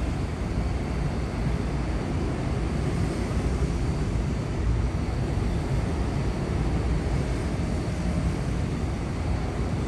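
Long Island Rail Road M7 electric multiple-unit train, 12 cars, pulling out and rolling past, a steady low rumble of wheels and motors.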